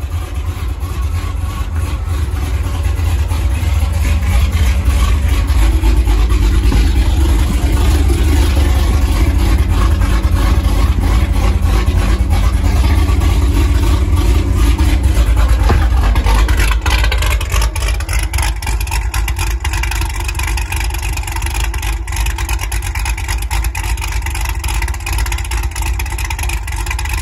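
Supercharged 6.2-litre V8 of a 2015 Chevrolet Camaro SS idling through its exhaust with a steady, deep rumble. It is louder through the middle stretch and drops back about 17 seconds in.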